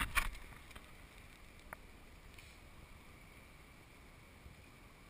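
A few handling knocks on the camera at the start, then a steady rushing background of surf and wind along the rocky shore.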